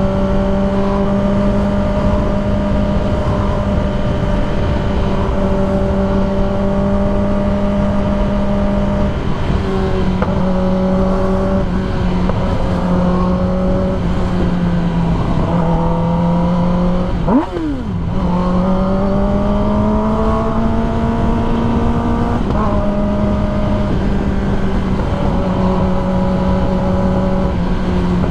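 2021 Kawasaki ZX-10R's inline-four engine running at steady cruising revs, with constant wind rush underneath and small shifts in pitch. A little past halfway the revs drop sharply for a moment and pick straight back up, as in a quick gear change, then climb gently.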